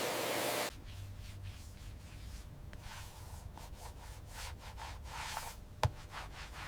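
A loud steady hiss cuts off suddenly under a second in. It is followed by irregular rubbing or wiping strokes over a surface, and a single sharp click near the end.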